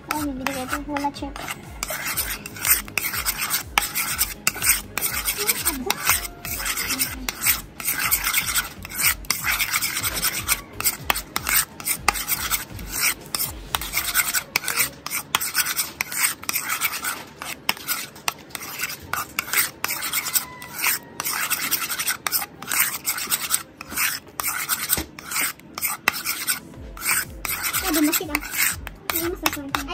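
Metal spoon scraping around a ceramic bowl as it stirs a thick mayonnaise sauce, in quick, continuous strokes.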